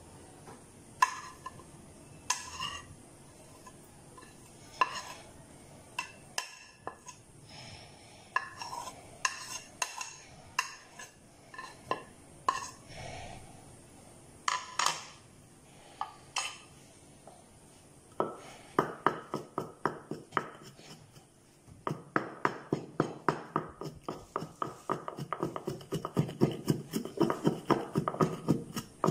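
Scattered taps and clinks of a china plate and spices against a stone mortar, then a wooden pestle pounding salt and chilli in the stone mortar: quick, even strikes about five a second over the last ten seconds or so, with a brief pause in the middle.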